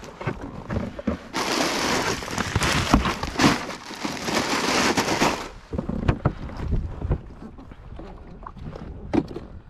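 Knocks and thumps of handling aboard a small fishing boat, with a loud rushing hiss that starts abruptly about a second in and cuts off about four seconds later.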